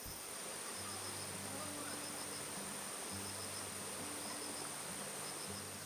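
Insects chirring in a steady high-pitched drone, typical of late summer.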